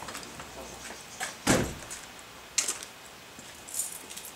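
Pickup truck cab door swung shut with a single heavy thump about one and a half seconds in, followed by a few lighter clicks.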